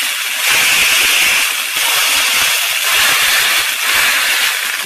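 Dried pollack fillet sizzling in grapeseed oil in a hot frying pan: a loud, steady hiss with uneven crackling of spattering oil, the fish being given its first browning before the sauce goes on.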